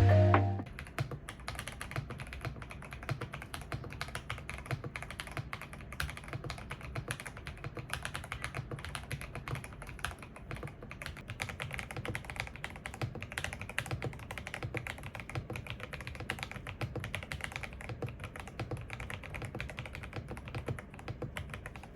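Typing on a Feker IK65 mechanical keyboard: a fast, continuous run of key presses, many clicks a second.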